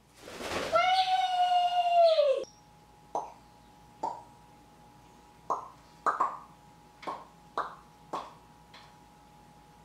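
African grey parrot flying from a hand to a chair back: a rush of wing noise with a long whistled call that rises slightly, falls and stops abruptly. It is followed by about nine short, sharp pops at irregular intervals.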